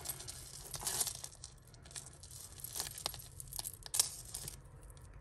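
Tangled costume jewellery being handled: faux pearl beads and metal chains clicking and rustling against each other as a strand is worked free, with a sharper click about four seconds in.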